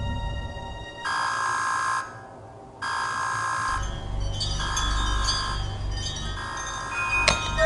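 Bell-like chiming tones in repeated phrases about a second long with short gaps between them, joined by a low rumble about four seconds in; a sharp click near the end.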